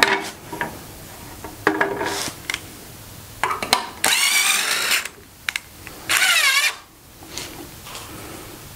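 Power drill driving screws into a wooden 2x4 frame: two bursts of the motor, about a second and under a second long, its pitch wavering as the screws bite, with a few knocks of the wood before them.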